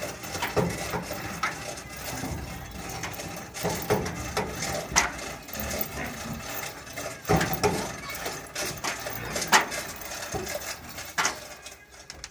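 Irregular knocks and clanks, some sharper and louder than others, over a low background of yard noise.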